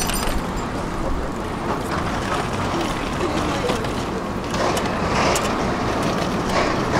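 Steady city street and traffic noise at a tram crossing, with a tram close by and the footsteps and scattered faint voices of a crowd of pedestrians crossing.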